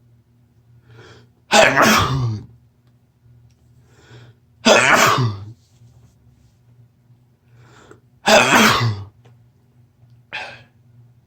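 A person sneezing three times, a few seconds apart, each sneeze wet and preceded by a short in-breath, then a shorter, quieter burst near the end. It is a sneezing fit during a cold, set off with chhinkni sneezing powder.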